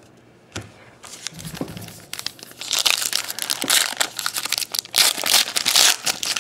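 Foil wrapper of a Prestige football trading-card pack being torn open and crinkled. A few light taps come first, then loud, dense crackling in two spells over the last three and a half seconds.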